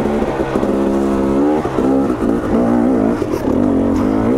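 2022 KTM 250 XC two-stroke dirt bike engine running under the rider on a trail. The pitch holds steady for the first second and a half, then drops and climbs again several times as the throttle is rolled off and on.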